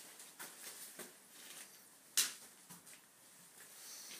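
Quiet room tone with a few faint, uneven clicks and knocks, one sharper click about two seconds in; the engine is not running.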